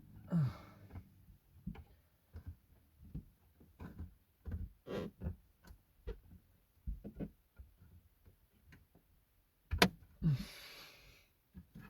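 Irregular small clicks and knocks of hard plastic being handled and pried at a car dashboard while working trim clips loose to remove the radio. A sharp, louder click comes a little before the end, followed at once by a short scraping rustle.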